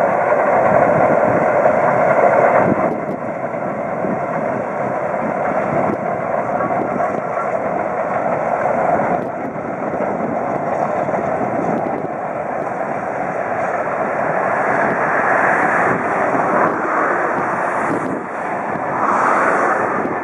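Southern Railway S15 class steam locomotive No. 825 working a passenger train, heard from afar as a continuous rushing of exhaust and running train.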